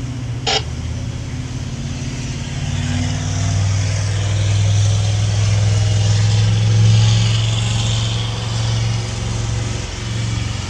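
Twin inboard engines of a 1987 Jefferson 42 motor yacht running under way with a steady low drone, growing louder through the middle and easing near the end, over a hiss of wind and water. A single sharp click sounds about half a second in.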